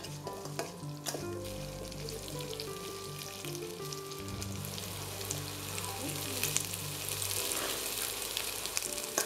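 Pumpkin pieces sizzling as they fry in hot mustard oil in a steel kadai, a spatula stirring them and now and then clicking against the pan. The sizzle gets louder in the second half.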